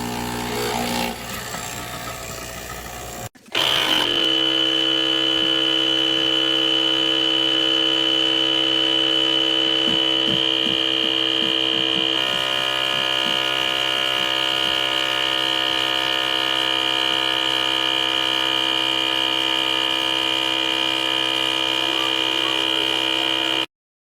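Mixpresso capsule espresso machine's 19-bar pump running: a steady mechanical hum with a high, constant tone over it. The sound breaks off briefly about three seconds in, resumes louder, and cuts off suddenly near the end.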